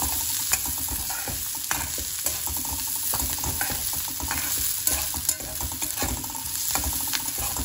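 Chopped red amaranth stems and onion sizzling in hot oil in a kadhai, stirred with a spatula that scrapes and taps against the pan in irregular strokes. The stems are being partly cooked before the leaves are added.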